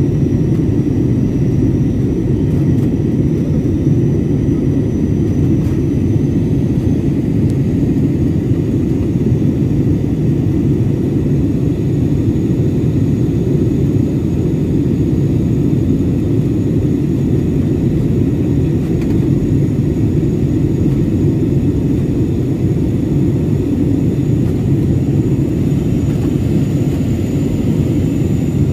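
Steady jet airliner cabin noise in flight: the low roar of the engines and airflow heard from inside the cabin, with a faint high whine that steps up slightly in pitch twice.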